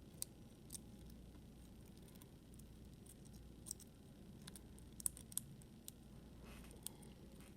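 Faint, scattered small metal clicks and ticks as parts of a disassembled euro lock cylinder are handled, with a brief soft rustle near the end.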